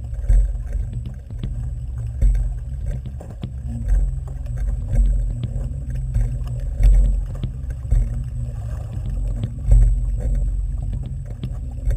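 Underwater camera audio: a loud, low, surging rumble of moving water against the housing, with scattered small clicks and knocks. It cuts off suddenly near the end.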